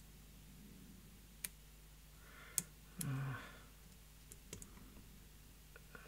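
Metal lock picks clicking against a Fontaine pump lock as it is picked back to its original position: a few sharp separate clicks, the loudest about two and a half seconds in, with a short rustle of handling around it.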